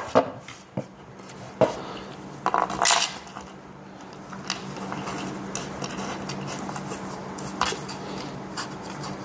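Table-assembly hardware clinking and knocking as the frame bolts are backed off and the parts shifted to line up the bolt holes. A few sharp clinks come near the start and a cluster about three seconds in, then lighter scattered ticks over a steady low hum.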